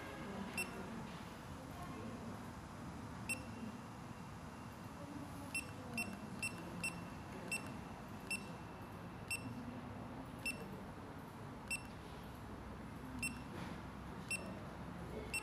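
Wrist watch pager giving a short, high key-press beep each time its up/down key is pressed to step through its settings menu. There are about a dozen beeps at uneven intervals, several in quick succession around the middle.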